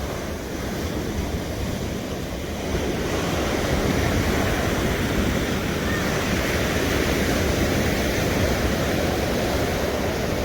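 Pacific Ocean surf breaking and washing up on a beach, a steady rush that swells louder about a quarter of the way in and holds there.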